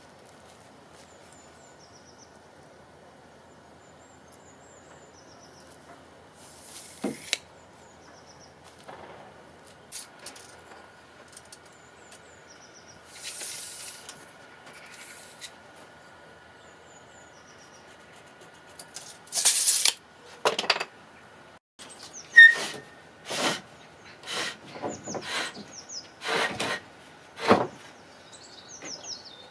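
Quiet outdoor ambience with faint bird chirps and a few scattered scrapes, then, about two-thirds of the way in, a run of sharp knocks and scrapes about one a second.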